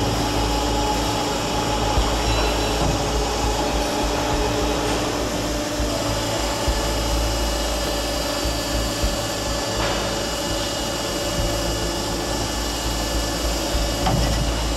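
Multi-spindle drilling machine running: a steady motor hum over a low rumble, its tone shifting higher about six seconds in, with a couple of light clicks near the end.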